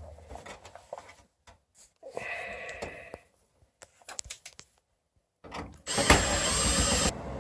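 A power drill runs for about a second near the end and stops sharply, after scattered clicks and a shorter, quieter whir. A lower steady hum continues after it stops.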